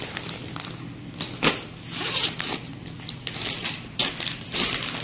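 Clear plastic packaging crinkling and rustling as it is handled, in uneven bursts with a few sharper crackles, over a low steady hum.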